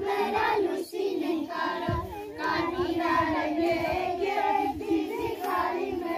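A group of children and adults singing a song together in unison, in short phrases with brief breaks.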